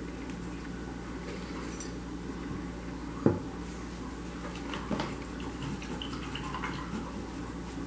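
A glass bottle set down upright on a granite countertop, making one sharp knock about three seconds in, then a lighter click a couple of seconds later, over a steady background hum.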